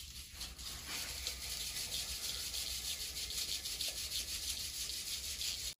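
Red soil being shaken through a round wire-mesh sieve into a steel basin, giving a steady scratchy hiss of grit rubbing on the mesh. The soil is being sifted fine for an earthen casting mould.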